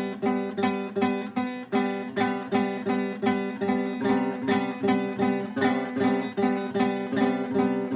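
Acoustic guitar strummed in a steady, even rhythm, repeating the same chords, which the player himself says might be a little out of tune.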